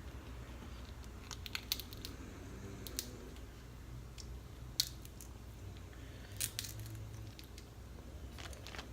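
Snow crab leg shells cracking and snapping in a handful of sharp clicks spread over several seconds, with eating sounds, over a steady low hum.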